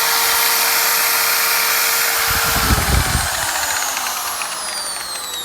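Harbor Freight Drill Master 7-inch variable speed polisher/sander running at its top speed setting, 6, with a steady electric motor whine. A little past halfway the pitch starts falling as the motor winds down, with a few low knocks at that moment.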